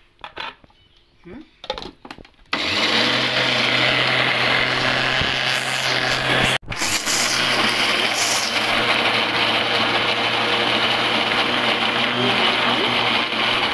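Electric blender's chopper bowl mincing boiled lemon peels into a fine paste. After a few light knocks, the motor starts about two and a half seconds in and runs steadily at full speed, stopping for an instant around the middle and starting again at once.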